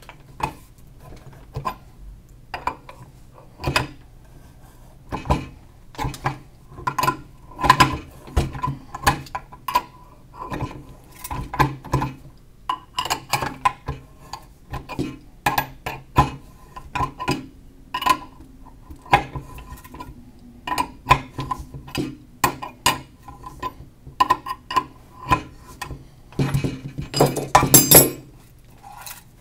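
Steel wrenches clinking and knocking against a metal probe fitting as it is loosened: many irregular sharp metallic clicks. Near the end comes a longer, louder rattle of metal.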